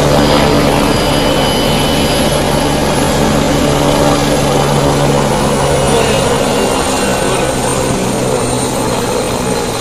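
Police helicopter on the ground with its turbine engine and rotor running; the high turbine whine drops in pitch partway through as it winds down after landing.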